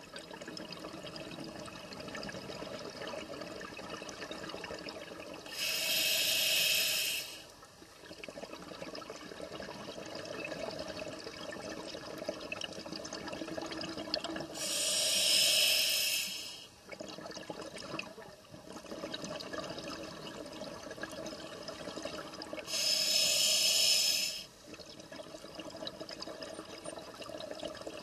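A scuba diver breathing through a regulator underwater: three loud rushes of exhaled bubbles, about eight seconds apart, each lasting a second or two, over a steady wash of water noise.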